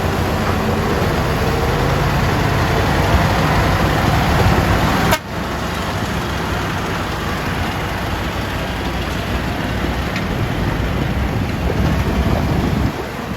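Hitachi Zaxis excavator's diesel engine running loud and steady under working load, with a low rumble, interrupted by a brief break about five seconds in.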